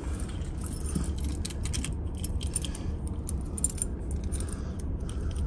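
Small metal objects jingling and clinking irregularly, over a steady low background hum.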